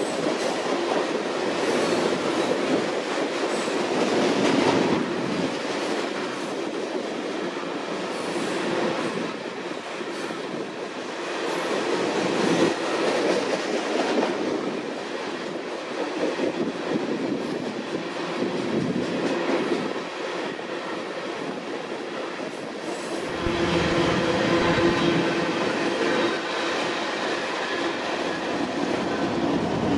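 Freight train cars rolling on the rails: a steady run of wheel and car noise with clicks, and faint squealing tones toward the end.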